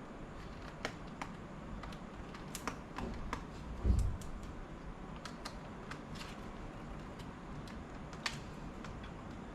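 Scattered small clicks and taps of a screwdriver and screws on a laptop case during disassembly, with one dull thump about four seconds in.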